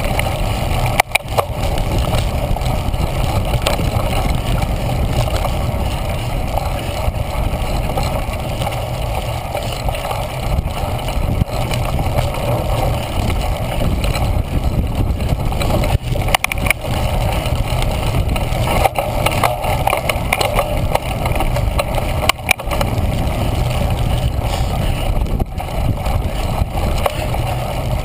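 Steady rumble and rattle of a cyclocross bike ridden fast over bumpy grass, picked up through a GoPro Hero 1 in its case, with a few sharper knocks from bumps.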